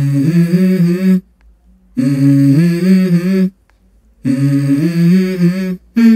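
Background music: a wordless voice in three long melodic phrases, each about a second and a half, with short gaps between them.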